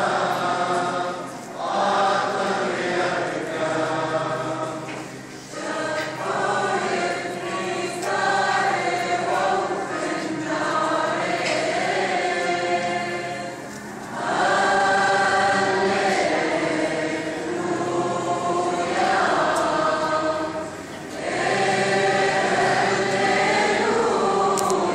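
A choir of many voices singing a hymn together in long sustained phrases, with short breaks between the phrases.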